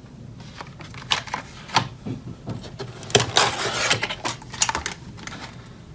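Plastic packaging of a boxed AMD Ryzen processor being handled: scattered clicks and knocks, with a denser rustle lasting about a second around three seconds in.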